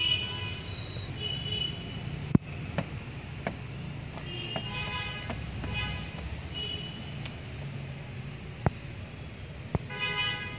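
Steady traffic rumble with vehicle horns tooting several times, loudest about halfway and near the end, and a few sharp clicks.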